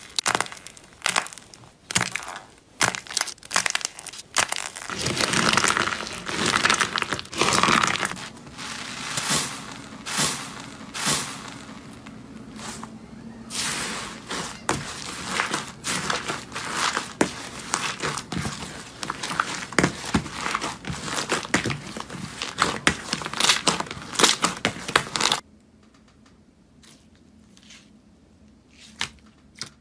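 Slime being handled: dense crackling and popping clicks as it is squeezed and pressed. About 25 seconds in it cuts to a much quieter stretch with only sparse, soft clicks.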